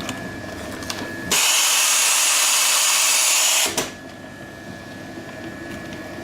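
Compressed air hissing in one loud, even blast of about two and a half seconds that starts and stops abruptly, over a steady thin high whine from the running machine.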